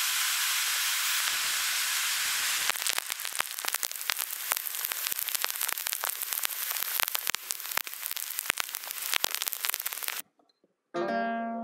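Rain falling on pavement: a steady hiss at first, becoming a heavy downpour with many sharp drop impacts after about three seconds. It cuts off suddenly near ten seconds, and after a short gap a guitar chord is struck and rings on.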